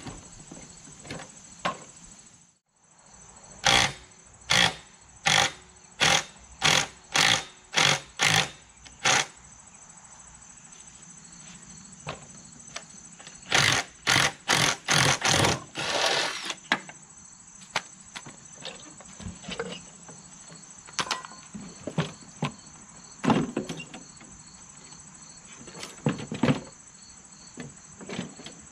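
Handheld power tool run in short bursts on rusted bolts of a steel push-mower deck: eight evenly spaced bursts, then a quicker cluster ending in a longer burst. Crickets chirr steadily in the background.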